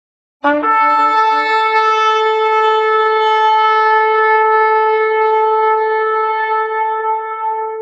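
A single long shofar blast. About half a second in it starts with a brief lower note, jumps up, and then holds one steady tone that is still sounding at the end.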